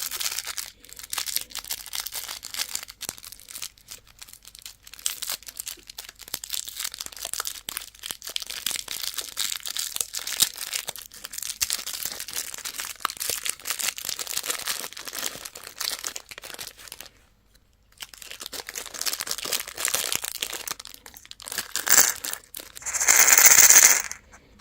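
Crinkly plastic candy wrapper or packaging being handled and torn open, a dense crackling that stops briefly about two-thirds of the way through, then ends in a louder, longer tearing rasp near the end.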